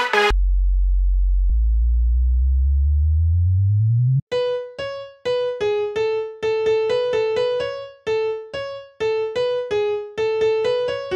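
Future bounce build-up playing: a deep bass note slides upward for about four seconds, then a piano melody of short, clipped notes takes over.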